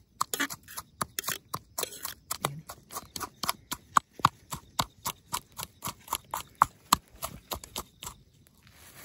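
A quick, irregular series of sharp clicks and knocks, several a second, stopping shortly before the end, when a faint hiss takes over.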